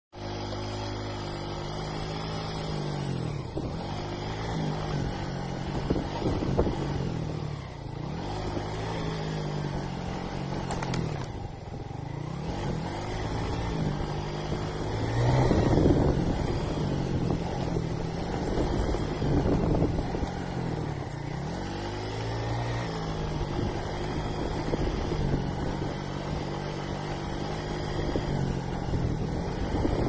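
A motor vehicle's engine running, its pitch repeatedly falling and rising again every few seconds.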